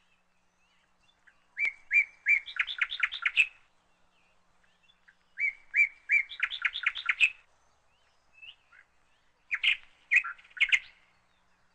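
A bird singing: three song phrases of rapid repeated chirping notes, each about two seconds long, starting about two, five and a half and nine and a half seconds in.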